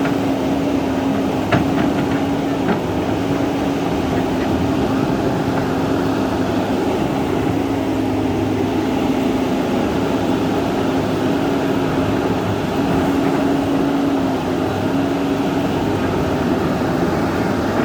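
Large excavator's diesel engine running steadily with a low, even drone, and a few sharp metallic clicks or knocks about one and a half to three seconds in.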